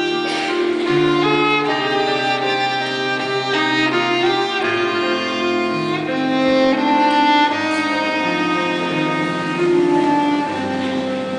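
Violin playing a slow melody in held notes over an electronic keyboard accompaniment with sustained bass notes.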